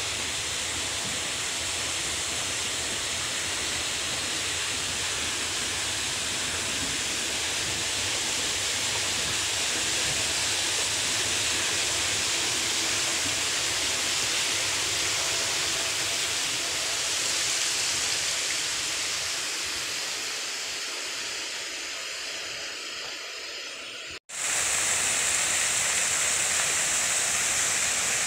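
Steady rushing hiss with no clear tone, cutting out for an instant about 24 seconds in and then going on much the same.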